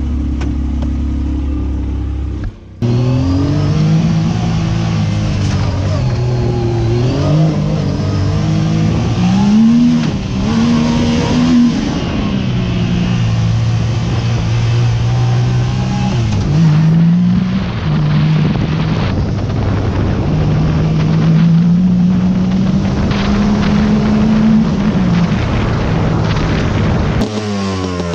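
Engine of a Yamaha side-by-side UTV under way: steady at first, then revving up and dropping back again and again as it accelerates through the gears, with stretches at an even pace between the climbs.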